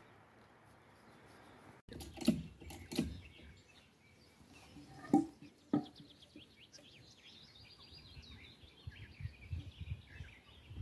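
A songbird singing a long run of quick, high chirps that step down in pitch, with a few scattered dull knocks before and under it.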